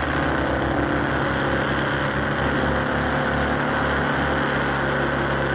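Motorcycle engine running at a steady cruising speed, with wind rushing over the bike-mounted camera.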